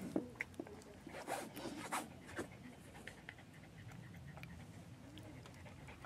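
Someone eating stir-fried noodles with chopsticks: a few short slurping and clicking noises in the first couple of seconds, then quieter.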